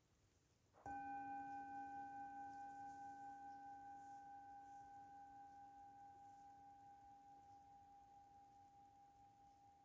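A metal singing bowl struck once about a second in, then ringing on with several steady overtones, slowly fading with a gentle wavering pulse.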